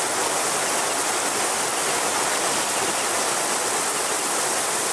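Stream water rushing steadily, an even, continuous wash of flowing water.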